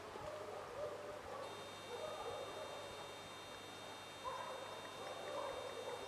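Wild boar sow and piglets grunting softly and repeatedly while rooting, short low calls coming irregularly, closer together and a little louder in the second half.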